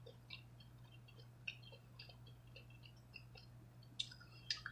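Faint chewing and wet mouth clicks from eating hard-shell tacos, with a couple of sharper clicks near the end. A low steady hum runs underneath.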